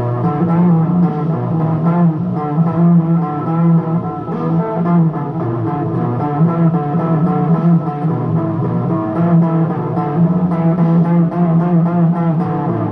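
Headless electric guitar playing a blues, notes following one another without a break.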